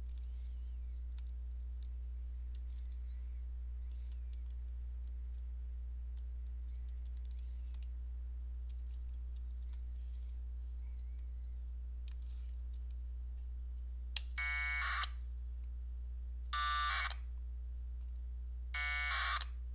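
A steady low electrical hum, then, about two-thirds of the way in, three short packet radio data bursts, each a buzzy, warbling tone under a second long. They are AX.25 frames going back and forth between the LinBPQ32 node and the Winlink gateway.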